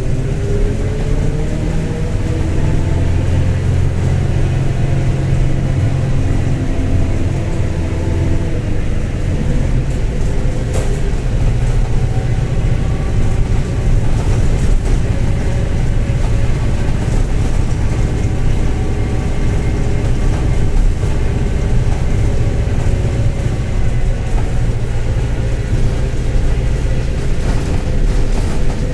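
Mercedes-Benz OF-1721 BlueTec 5 city bus under way. Its diesel engine climbs in pitch over the first several seconds as the bus accelerates, then settles into a steady drone. With it runs the growl of a worn bearing ("rolamento roncando").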